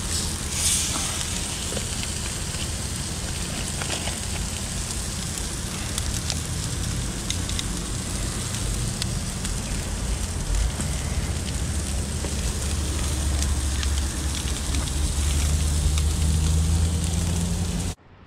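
Whole Atlantic croakers and butter sizzling on a grill mat over a gas grill's open flames, with scattered crackling pops and a steady low rush from the burners. The sound cuts off abruptly near the end.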